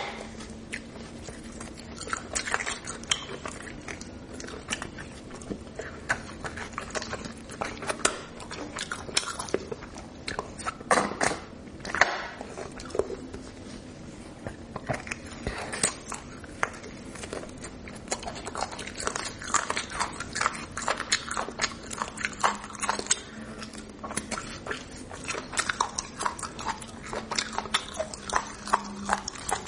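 Close-miked eating of beef bone marrow: wet chewing, smacking and sucking, with many short mouth clicks throughout, over a faint steady hum.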